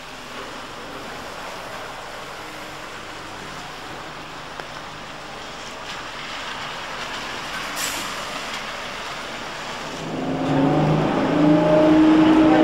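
Electric trolleybus pulling away in heavy rain: a steady hiss that grows louder as it comes closer, with a short sharp hiss about eight seconds in. About ten seconds in the sound moves inside a moving trolleybus and gets much louder, with its drive whining in steady tones that step up and down.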